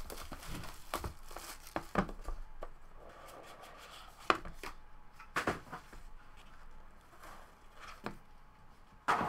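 A shrink-wrapped cardboard trading-card box being unwrapped and opened by hand: plastic wrap rustling and tearing, with irregular knocks of the box and card case against a table.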